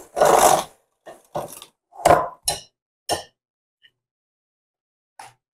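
Electric hand mixer beating thick cookie dough in a glass bowl stops about half a second in, followed by a handful of short clinks and knocks as the metal beaters tap the glass bowl and the mixer is set down on its heel rest.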